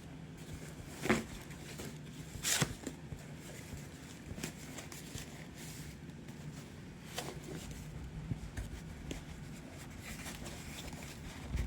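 Packaging being handled and opened: light rustling and crinkling, with two louder sharp crackles about one and two and a half seconds in and smaller ones later.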